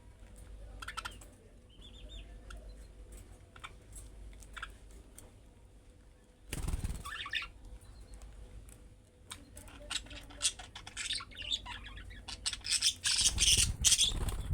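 Budgerigars chirping in short high calls, sparse at first and building to dense chattering over the last few seconds. There is a brief noisy burst about halfway through.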